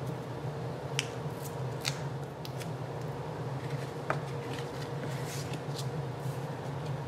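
Scattered light clicks and crackles of paper handling: foam pop dots peeled off their backing sheet and pressed onto a strip of patterned paper, and the cardstock card base being picked up and set down. A steady low hum runs underneath.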